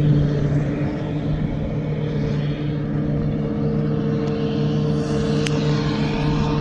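New Holland self-propelled forage harvester chopping silage into a trailer running alongside: a steady mechanical drone with a held hum over a low rumble, and a brief click about five and a half seconds in.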